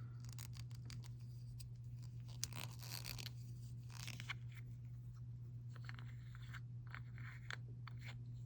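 Faint scattered rustling and scraping as small plastic jars of chrome nail powder and their packaging are handled, over a steady low hum.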